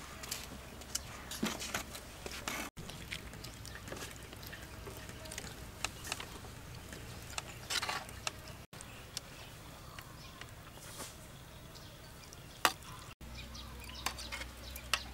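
A metal spoon scraping and tapping irregularly on a steel tray while boiled fish is flaked off the bone by hand, with scattered sharp clicks.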